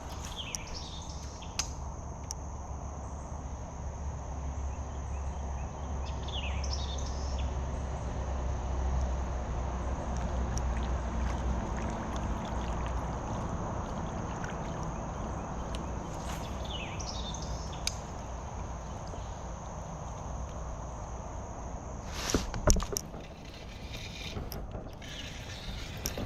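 Creek-side outdoor ambience: a steady high insect drone, a constant rushing noise underneath, and a bird's falling call heard three times. About 22 seconds in comes a short cluster of knocks and rattles, the loudest thing here.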